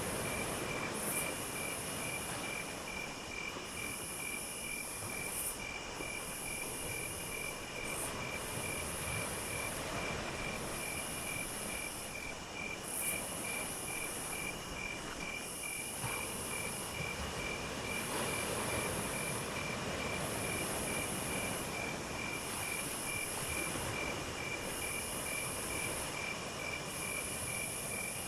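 Insects, crickets among them, chirping steadily: one keeps up a fast, even pulsing chirp, while a higher, shriller insect call comes in phrases about every two seconds. Underneath runs a steady low hiss and rumble.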